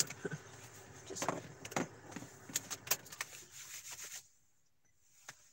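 Keys jangling and clicking, several sharp metallic chinks and rattles over a steady background noise that cuts off about four seconds in.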